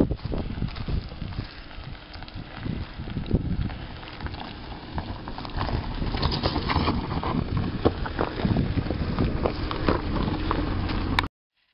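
Citroën C4 Picasso driving slowly up a rocky dirt track and passing close by, its tyres crunching over loose stones under the engine's running, with wind rumbling on the microphone. The sound cuts off abruptly near the end.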